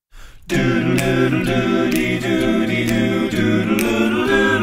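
Multi-tracked a cappella vocal arrangement: one singer's layered voices holding chords that start about half a second in, with a sharp click keeping a beat about twice a second.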